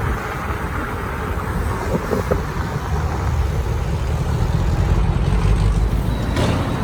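Steady low rumble of passing traffic and wind buffeting the microphone on a moving bicycle, growing heavier about halfway through.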